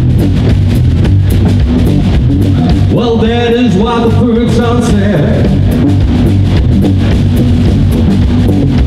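Live rock and roll band playing: drum kit and electric guitars, with a melody line standing out about three seconds in.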